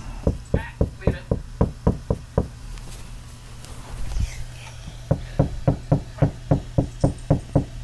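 Rapid knocking, two runs of about a dozen quick knocks each at roughly four to five a second, with a pause of a couple of seconds between them.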